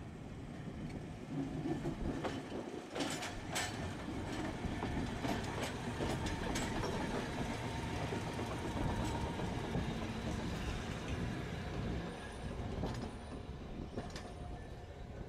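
Tosaden streetcar 202 pulling away and running past close by. Its wheels and motors rumble on the rails, with a cluster of sharp clicks about two to three seconds in, and the rumble fades as it moves off near the end.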